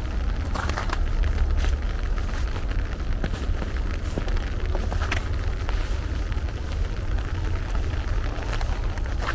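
Steady rain, with scattered sharp drop ticks over a low rumble.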